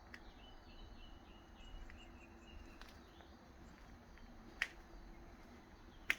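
Faint outdoor background with a low hum. A bird chirps a short run of high notes that stops about two and a half seconds in, and there are two sharp clicks in the second half, the later one the loudest.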